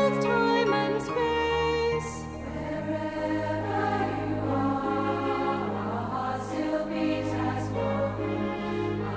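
Slow background music of long held notes, moving to a new chord about two seconds in.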